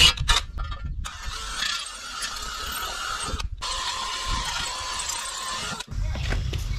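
DeWalt cordless drill boring a 6 mm hole through the aluminum oil pan flange: a few short trigger blips, then a steady drilling whine with cutting noise, broken by a brief pause about three and a half seconds in. The drill stops shortly before the end.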